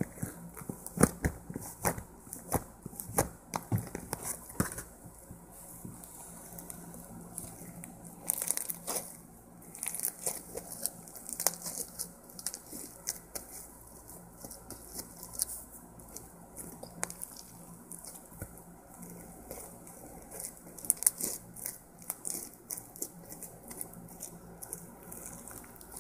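Homemade blue floam being squeezed and poked by hand, giving irregular small crackles and crinkling noises with no steady rhythm.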